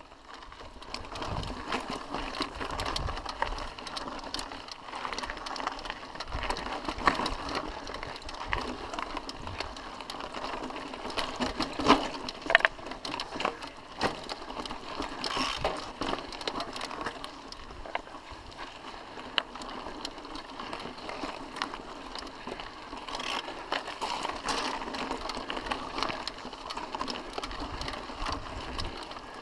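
Mountain bike rolling over a rocky dirt singletrack, with the chain and bike rattling in a dense, continuous clatter. Two sharp knocks stand out about twelve seconds in.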